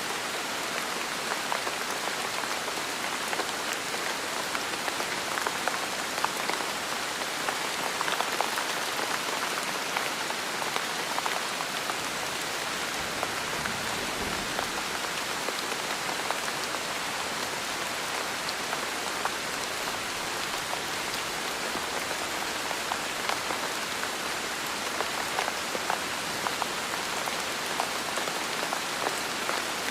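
Heavy rain falling steadily, a dense patter of many drops hitting a surface, with a faint low rumble about halfway through.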